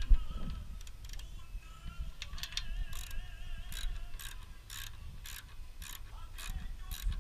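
Rhythmic mechanical clicking, about two strokes a second from a couple of seconds in, over faint music.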